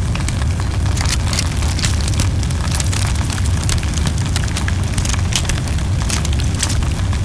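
Large bonfire burning close up: dense crackling and popping of burning wood over a steady low rumble of flames.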